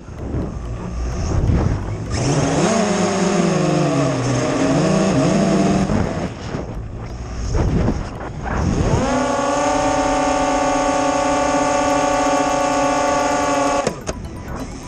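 MJX Bugs 3 quadcopter's brushless motors and propellers whining as heard from a camera on the drone, with wind rushing over the microphone. The pitch wavers up and down with throttle in the first half, then holds a steady whine that cuts off abruptly near the end.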